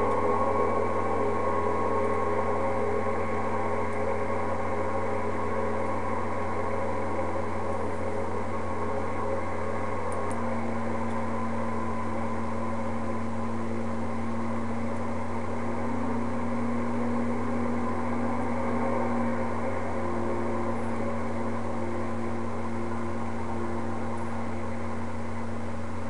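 Ultralight trike engine running steadily, a constant mechanical hum with a slight step up in one of its tones about ten seconds in.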